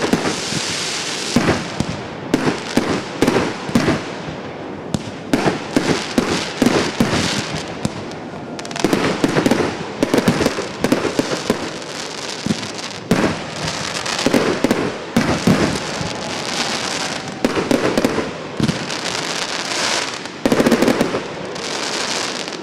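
"Golf Club" consumer firework cake firing a rapid barrage: clusters of sharp bangs several a second, over continuous crackling from bursting stars. It stops just before the end.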